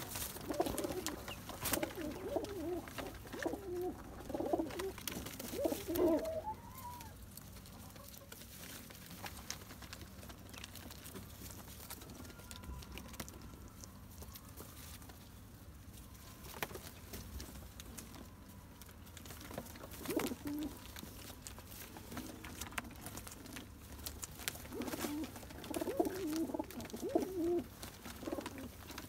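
Domestic pigeons cooing, several low, wavering coos overlapping. The coos are dense over the first six seconds or so, fall away to a quieter stretch with only scattered clicks, then return around twenty seconds in and build up again near the end.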